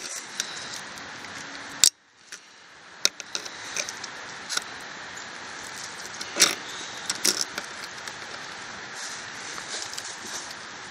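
Needle-nose pliers clicking and scraping against a trailer axle's cotter pin and spindle nut as the pin's legs are pried back: scattered small metal clicks, the sharpest a little past the middle and a quick cluster soon after.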